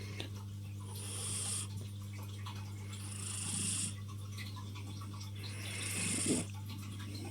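Domestic cat snoring in her sleep: three soft, hissing snoring breaths roughly two and a half seconds apart, the last with a slight rasp.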